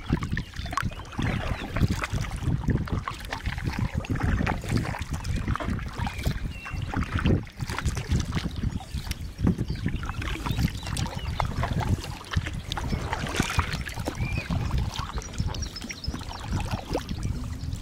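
Double-bladed kayak paddle strokes dipping and splashing in calm river water, with wind buffeting the microphone in a constant low rumble.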